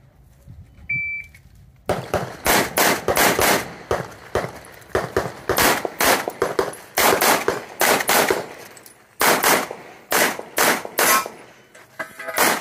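A shot-timer beep about a second in, then a long string of rapid pistol shots, fired in quick strings with short gaps between them.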